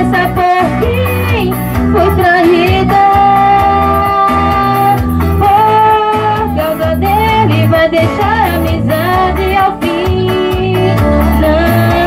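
A woman sings a melody into a microphone over recorded backing music with a pulsing bass line and guitar.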